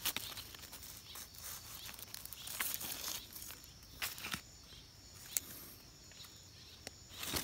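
Faint rustling and crackling of dry fallen leaves, with a few sharp clicks scattered through it, as a hand moves in the leaf litter.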